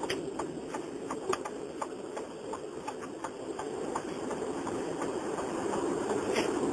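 Car cabin noise from a car on the move, recorded on a mobile phone: a steady low rumble of road and engine with a run of light clicks, a few a second, that thin out after about four seconds, and one sharper click near the end.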